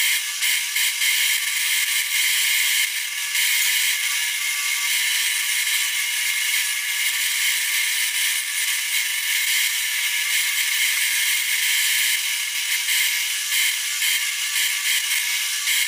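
Bench disc sander running with a steady whine as small wooden pieces are pressed against the spinning abrasive disc. The grinding hiss of the sanding flickers as each piece touches and lifts off.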